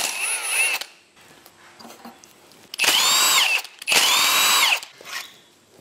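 Power ratchet undoing bolts on the front of a V8 engine block: a run that ends within the first second, then two runs of about a second each, each a whine that rises and falls as the motor spins up and slows.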